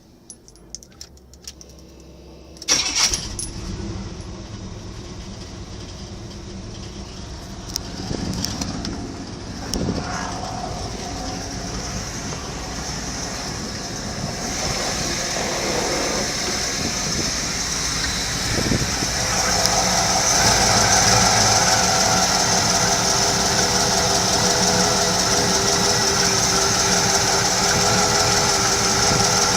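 Chevrolet LT1 V8 engine starting suddenly about three seconds in, then running, with two brief revs a few seconds later. It grows gradually louder and runs steadier and louder from about two-thirds of the way through.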